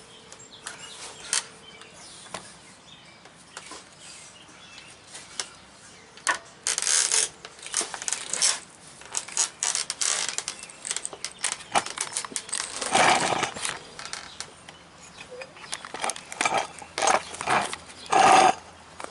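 Hand work on truck driveline hardware: scattered metal clicks and knocks from tools and parts, with several short, louder noisy bursts.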